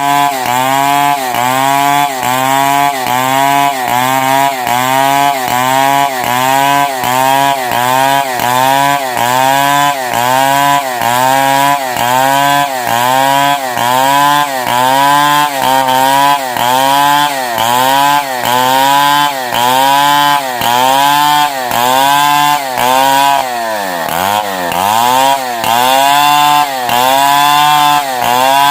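Stihl 070 two-stroke chainsaw ripping lengthwise through a log. The engine pitch dips and recovers about once a second as the chain bites into the wood, and once, near the end, it bogs down deeper before picking up again.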